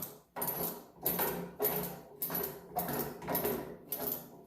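Repeated metal-on-metal strokes of a hand tool working the tiller's threaded-rod axle, about one every 0.6 s in a steady rhythm.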